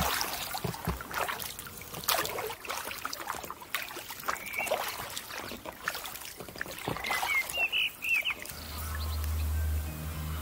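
Double-bladed kayak paddle strokes dipping and splashing through calm water, with drips and the odd knock. A few bird chirps near the end, then steady background music comes in about eight seconds in.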